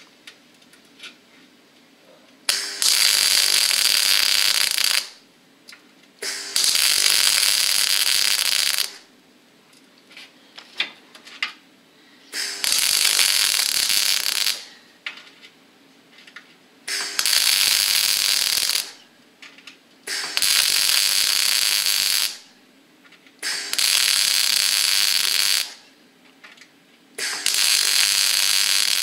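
MIG welder arc crackling on steel in seven runs of about two seconds each, with short pauses and a few small clicks between them: a new outrigger being stitch-welded onto the car's chassis.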